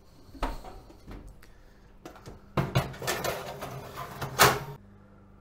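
A metal baking tray being slid onto an oven's wire rack: a couple of knocks first, then a longer stretch of metal scraping and rattling that ends in its loudest clank and stops sharply.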